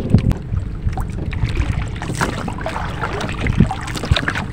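Steady wind and water noise on a small wooden fishing boat, with clothing rustling and small knocks close to the microphone.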